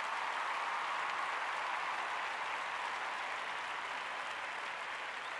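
Steady crowd applause, swelling up just before and holding even throughout.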